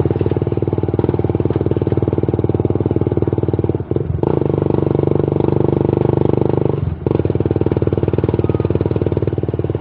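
A motor vehicle engine running steadily and loudly, dipping briefly twice, about four and seven seconds in.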